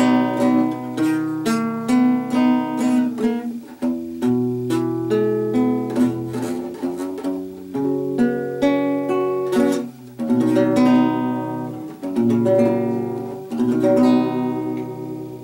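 Instrumental music on plucked acoustic strings, a guitar picking a melody of ringing notes over a steady bass line, getting quieter near the end.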